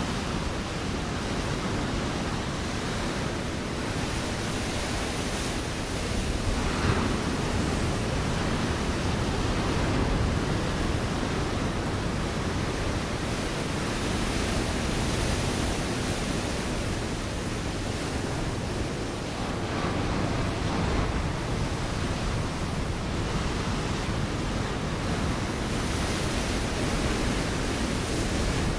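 Ocean waves breaking on a rocky shore: a continuous wash of surf that swells and ebbs, a little louder as waves break about a quarter of the way in, around a third of the way in and again past the middle.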